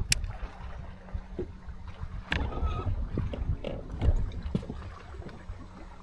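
Fishing boat on a lake with low, gusty wind rumble and water lapping against the hull, broken by scattered sharp clicks and knocks, the sharpest right at the start and another about two and a half seconds in.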